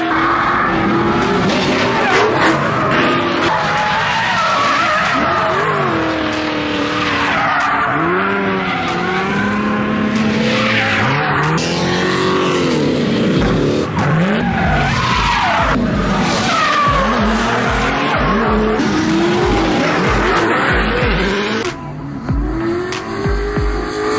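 Drift cars sliding around the track, their engines revving up and down in pitch with tires squealing. From about halfway, a steady bass beat of music sounds under them, and the car noise drops back a little near the end.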